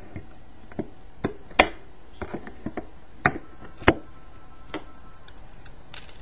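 Wire cutters snipping the excess capacitor leads off the solder side of a circuit board: a series of sharp, irregular clicks, the loudest about one and a half, three and a quarter and four seconds in.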